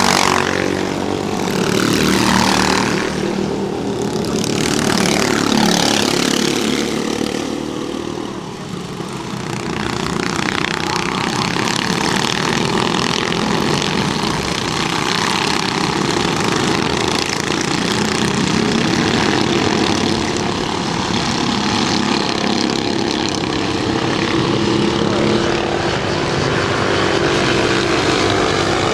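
Several 13 HP go-kart engines racing. In the first few seconds three karts pass close by, each a swelling rise and fall of engine noise, and after that comes a steady, blended drone of karts lapping farther around the circuit.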